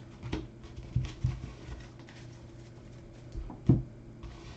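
Trading cards being handled: light rustling with a few soft knocks, the loudest near the end, over a steady low electrical hum.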